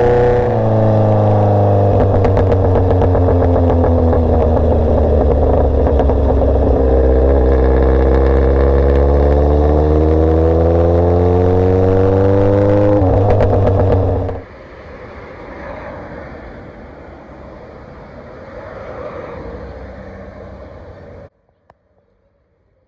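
Motorcycle engine running under way, its note sinking slowly and then climbing steadily for several seconds before dropping sharply, as at a gear change. About fourteen seconds in it cuts to a much quieter low hum, and it goes almost silent near the end.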